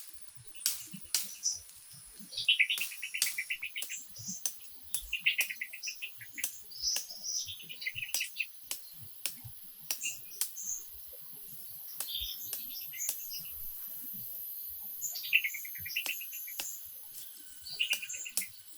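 A forest bird calling in short rapid trills, about six phrases each around a second long, over a steady thin high-pitched drone, with many sharp clicks and taps scattered through.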